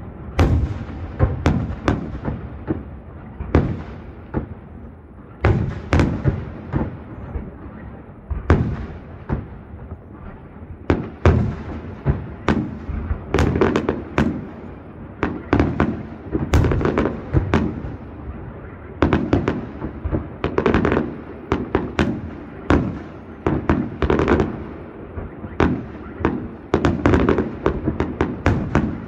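Fireworks display: aerial shells bursting in quick succession, sharp bangs from about one to several a second, each trailing off in an echoing rumble.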